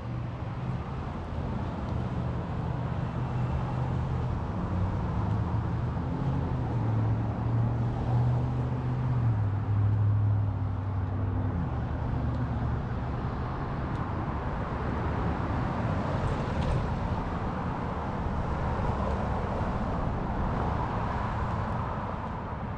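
A motor vehicle driving past on a street: a low engine hum grows louder and drops in pitch about ten seconds in. Near the end comes the rush of tyre noise rising and fading.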